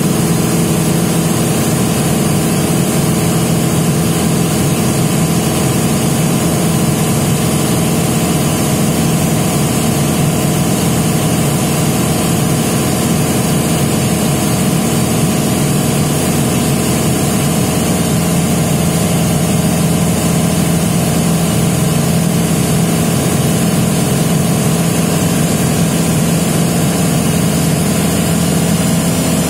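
Light propeller aircraft's piston engine and propeller droning steadily in cruise, heard inside the cabin, with a constant hum over a thick rush of air and engine noise.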